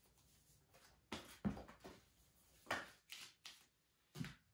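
Faint handling noises: a handful of short rustles and soft knocks as a small paper manual and loose unboxed camera parts are picked up and moved about, the loudest about one and a half seconds in.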